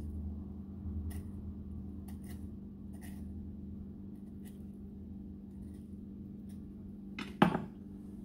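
A knife tip scoring a ripe avocado half held in the hand, giving faint, scattered light scrapes and clicks. Near the end comes a single sharp knock as the knife is set down on a wooden cutting board, over a steady low hum.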